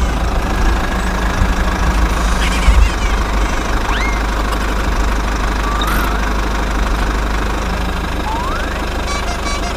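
Engine running with a steady, knocking rumble, like a construction vehicle's diesel idling. A few brief rising chirps come through over it.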